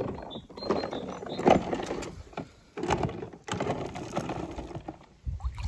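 A hand rummaging through loose coloured powder and toy cars in a plastic tub: rustling and scraping in several bursts, with small clicks as the cars knock together and against the plastic.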